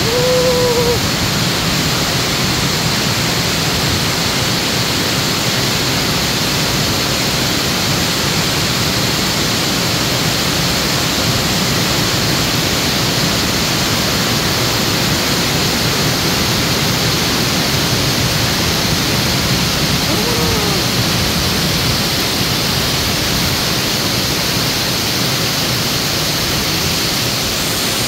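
Hail falling heavily: a loud, steady noise of countless hailstones striking the pavement and roofs.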